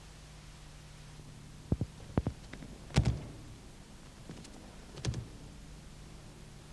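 A few short knocks and thumps of feet and bodies on a training mat as two people grapple, two close together about two seconds in and the loudest about three seconds in, over a steady low tape hum.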